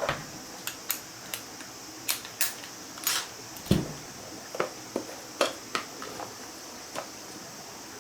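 Irregular small clicks and knocks of hard parts being handled, with one heavier knock a little before halfway; no motor is running.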